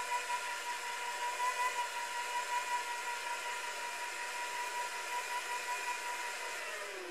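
Metal lathe turning down a steel wrench nut to cut away its old knurling: a steady ringing whine over the hiss of the cut. Near the end a lower tone slides down as the sound eases off.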